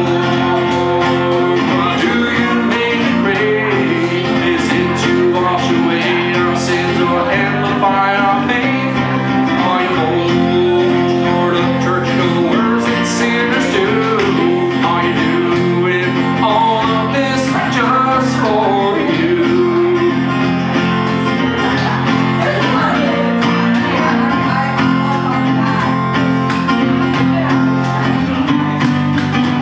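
Live song performance: a man singing over his own guitar playing.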